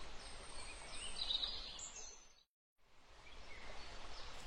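Faint countryside background ambience with a few birds chirping; it cuts out completely for about half a second in the middle, then returns.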